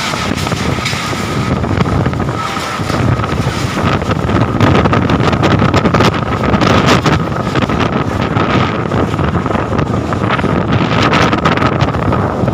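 Strong gusting wind from a whirlwind storm, surging and buffeting the microphone. A steady high tone runs underneath the whole time.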